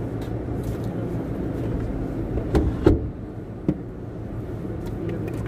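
Motor vehicle being driven, heard from inside the cabin: a steady low engine and road hum, with a few short knocks or rattles near the middle.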